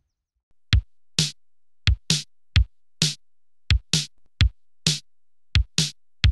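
Electronic drum-machine beat of a logo jingle: low kick-drum thumps alternating with sharp snare hits, a little over two hits a second, starting just under a second in.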